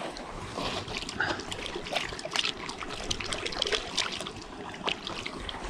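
River water trickling and splashing, with many small irregular splashes over a steady rush.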